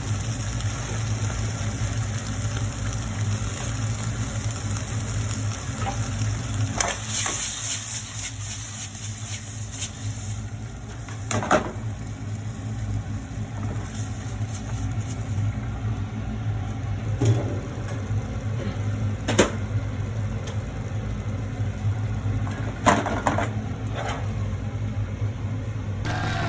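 Food sizzling in a frying pan over a steady low hum, with a few sharp knocks of a utensil against the pan now and then.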